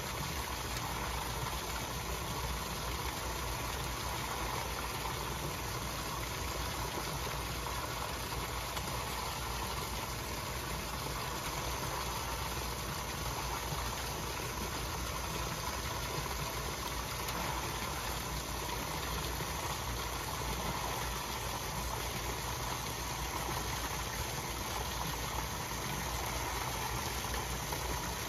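Steady rushing of pond water churning out of an inflow pipe, over a low, even drone that does not change.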